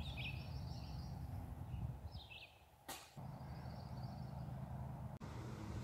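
Small birds chirping faintly over a steady low hum, with one sharp click about three seconds in.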